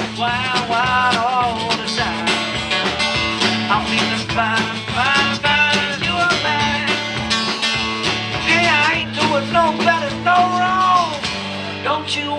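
Live acoustic guitar and drum kit playing a song together, with a melodic line bending in pitch over the strummed guitar and steady drum beat.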